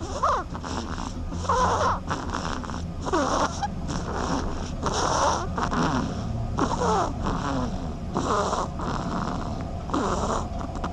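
A duck snoring: a rasping, snore-like breath repeated evenly about every one and a half seconds.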